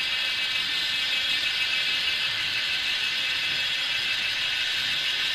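A steady high-pitched buzzing drone that holds level without a break.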